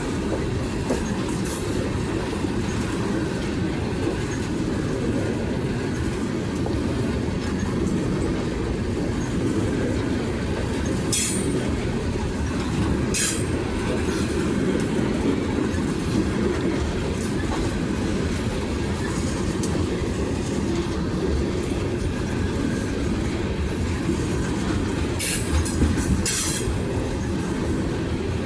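BNSF freight train cars rolling past with a steady low rumble of wheels on rail. Four short, sharp high sounds from the wheels cut through: two near the middle and two close together near the end.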